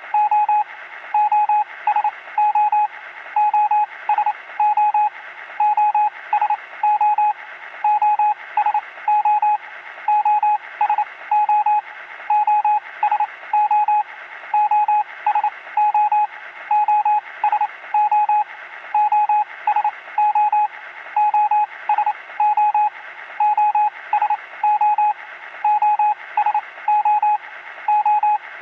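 Morse code SOS sent as a single beeping tone, three short, three long, three short, repeated over and over without a break. A steady radio-static hiss runs underneath.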